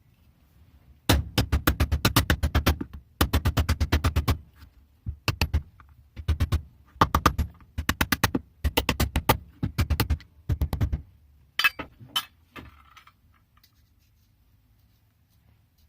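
Runs of rapid hammer taps, about ten blows a second in bursts of up to a second and a half, beating on a seized part of an old adjustable spanner to free it. A few lighter clicks follow near the end.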